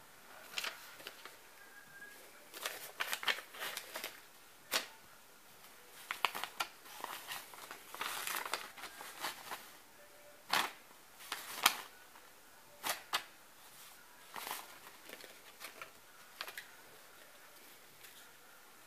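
A long-haired cat grooming its fur close to the microphone: irregular crackling, rasping licks and sharp clicks in uneven clusters, growing quieter near the end.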